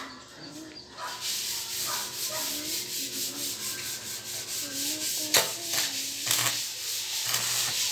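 Electric arc welding: a steady crackling, frying hiss from the arc, starting about a second in, with one sharp pop about five seconds in.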